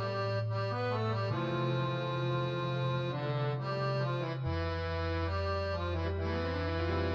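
Background instrumental music: sustained organ-like chords and a slow melody over a held bass note that steps down about halfway through.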